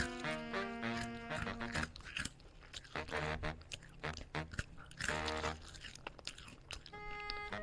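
Close-up biting and chewing of a chicken leg, crunchy and irregular, with music playing over the first two seconds and coming back near the end.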